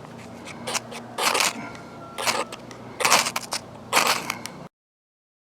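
A striker scraped hard down a Light My Fire firesteel five times, each a short harsh rasp about a second apart, throwing sparks at tinder to light a fire. The sound cuts out suddenly near the end.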